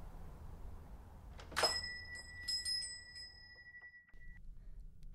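A shop-door bell rings once as the cafe door is opened: one bright strike that rings on and fades away over about two and a half seconds.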